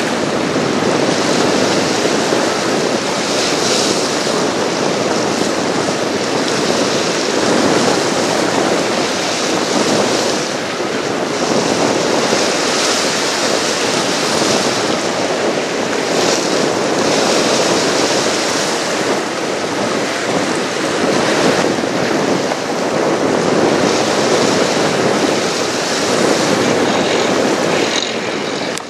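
River waves splashing and washing against a rocky shoreline, a steady rushing that swells and eases, with wind buffeting the microphone.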